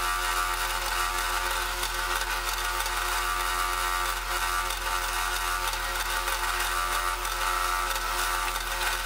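Drill press running steadily, a countersink bit cutting countersinks for screw holes in 1/4-inch aluminium plate.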